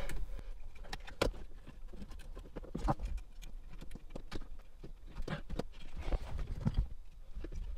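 Hands handling the wiring harnesses and connectors on the back of a car's factory radio unit: scattered small clicks, taps and rustles.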